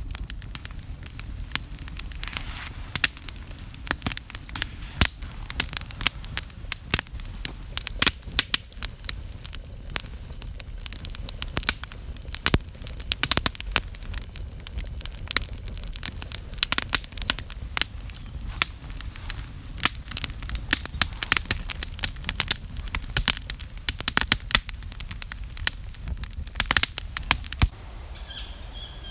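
Wood campfire burning under a cooking pot, crackling steadily with frequent sharp pops and snaps over a low rumble of flame. Near the end the crackling becomes quieter and sparser.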